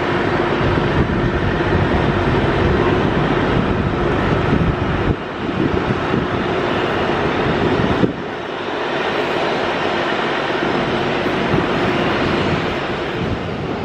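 Boeing 737-500's CFM56 jet engines running at taxi power: a loud, steady rush with a constant hum. The deep rumble drops off about eight seconds in.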